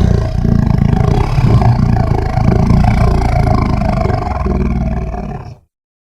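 Designed creature sound effect: a long, deep, rumbling monster roar with a metallic, synthesized edge, for a biomechanical raptor. It lasts about five and a half seconds and then cuts off.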